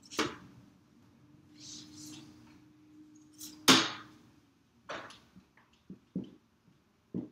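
Dry-erase marker and eraser on a whiteboard: a few sharp knocks, the loudest about halfway through, and a brief rubbing as writing is wiped off about two seconds in, then short squeaks of the marker writing near the end.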